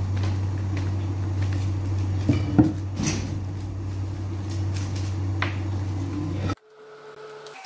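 Long-stemmed roses being handled: stems and leaves rustling and knocking together, with a few sharp clicks, over a steady low hum. About six and a half seconds in, the sound cuts off abruptly and faint music begins.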